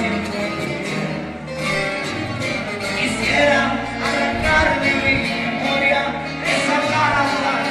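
Live acoustic guitars strumming in a regional Mexican style, with a man singing a serenade.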